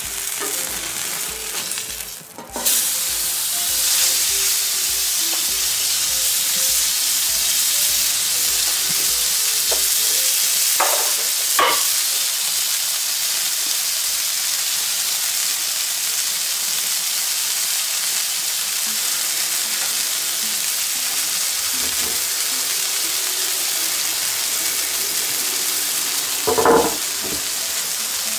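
Swordfish steak sizzling steadily on a hot plancha while it is seared for a crust. About two seconds in the sizzle briefly drops, then flares up loud as the steak is turned onto the hot plate with a metal spatula. A few short knocks come later, one near the end.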